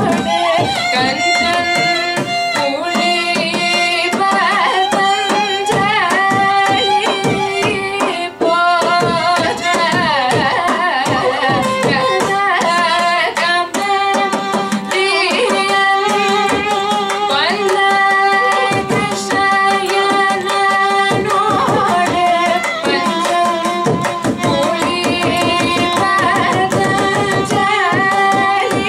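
Carnatic vocal music: a woman sings with gliding ornamented phrases, shadowed by a violin, over a steady electronic shruti box drone. A mridangam plays a dense run of strokes beneath. The piece is a kriti in raga Nadanamakriya.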